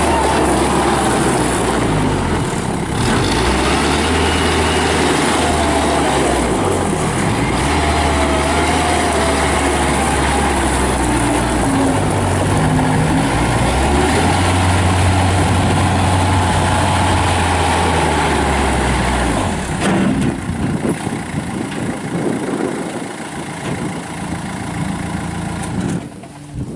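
Kubota diesel engine of a Bobcat B300 backhoe loader running loudly and steadily, its pitch shifting a little as the machine works, then dropping to a quieter running about three quarters of the way through.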